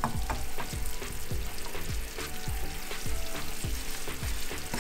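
Jaggery melting in vegan butter in a nonstick frying pan on low heat, sizzling and crackling steadily while a wooden spatula stirs and pushes it about in light, repeated strokes.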